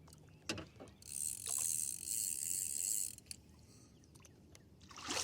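Fishing reel's drag buzzing for about two seconds as a hooked channel catfish pulls line off against it, after a couple of faint clicks.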